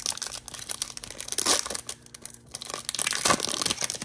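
Trading card pack wrapper being torn open and crinkled by hand, with louder bouts of crinkling about halfway through and again near the end.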